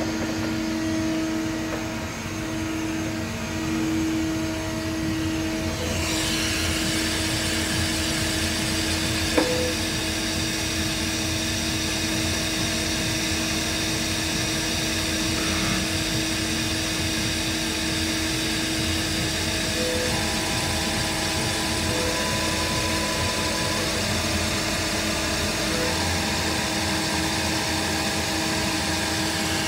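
Cincinnati CH 2500 horizontal machining center running, a steady mechanical hum with steady tones. About six seconds in a higher hissing whir joins and carries on, and there is a single sharp click about nine seconds in.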